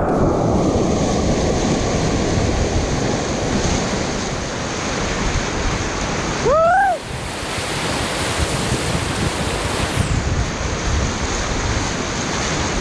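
Whitewater rapids rushing steadily, a dense loud roar of churning river water. About six and a half seconds in, a brief rising shout cuts through.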